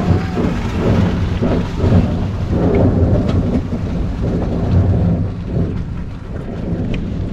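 Dodge Challenger's 440 V8 running loud through open headers: a deep, uneven rumble that swells and sags.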